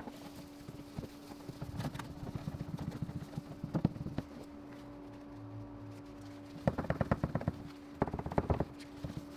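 A cloth is rubbed hard against the painted car fender around the marker-light opening, wiping it down with alcohol. It comes as short spells of quick, chattering rubbing strokes, two of them close together near the end, over a steady low hum.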